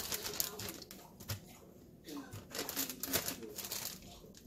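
Plastic zip-top freezer bag crinkling in irregular bursts as it is handled and filled with meatballs.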